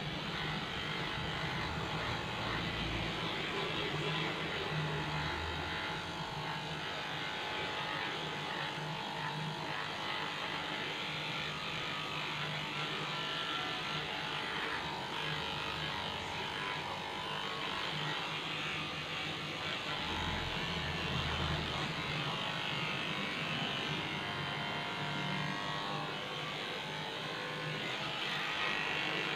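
Cordless electric dog clipper running with a steady buzz as it cuts a Shih-tzu's coat.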